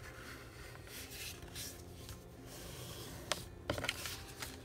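Sheets of flecked paper being folded in half and creased by hand: faint rustling and rubbing of paper, with a few sharper crinkles about three and a half seconds in.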